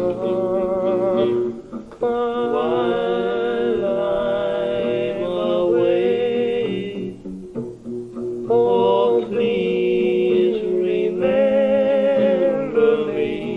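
A live rock and roll band playing a slow ballad: a male singer holding long, wavering notes over guitar accompaniment, with brief pauses between phrases.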